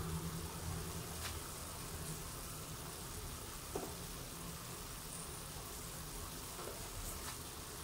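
Chicken breast slices and onion simmering in their juices in a pan, giving a soft, steady sizzle, with a few faint clicks.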